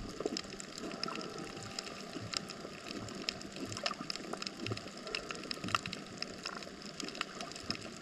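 Coral reef underwater ambience: a steady hiss filled with dense, irregular clicks and crackles.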